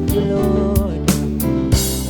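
Instrumental passage of a worship song: held guitar and keyboard-like notes over bass, with steady drum hits, no voice singing.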